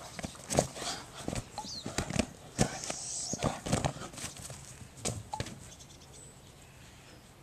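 A Great Dane playing with a basketball on grass: irregular thumps and scuffs of its paws and the ball, a dozen or so in quick succession, dying away after about five seconds.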